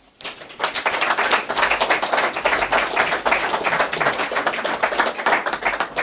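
Audience applauding: many people clapping densely, starting just after a brief lull.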